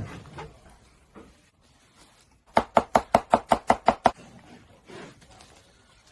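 A rapid run of about ten evenly spaced sharp knocks, roughly seven a second, lasting about a second and a half, with a few fainter single knocks around it.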